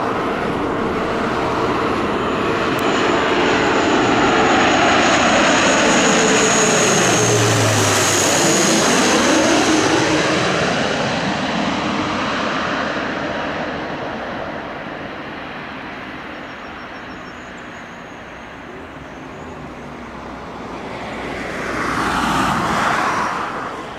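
Alenia C-27J Spartan's two Rolls-Royce AE2100 turboprops with six-blade propellers, passing low overhead on landing approach. The propeller and engine tones drop in pitch as it goes by, then fade. Near the end the sound swells briefly again as the aircraft reaches the runway.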